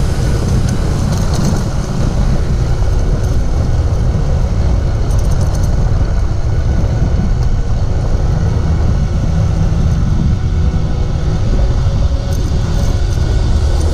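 Motorcycle in motion on the road: a steady, loud, low rumble of engine and road noise with wind on the microphone.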